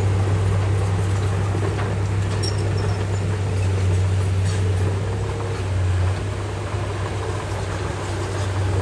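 Komatsu bulldozer's diesel engine running steadily under load with a strong low hum, a few faint clicks over it.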